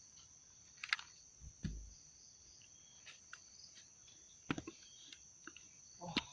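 Steady high-pitched chirring of a cricket chorus, with a few short rustles and knocks scattered through it, the loudest about a second and a half in and again about four and a half seconds in.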